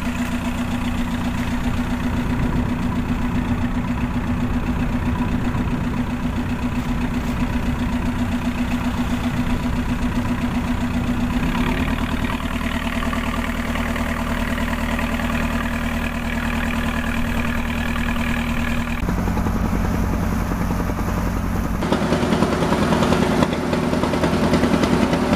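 A fishing boat's engine running steadily under way, with a constant hum; its note changes abruptly a few times.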